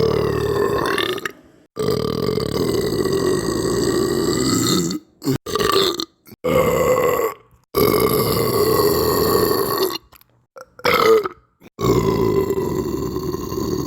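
A string of long, drawn-out belches, one after another, each held at a fairly steady pitch, with short abrupt silent breaks between them.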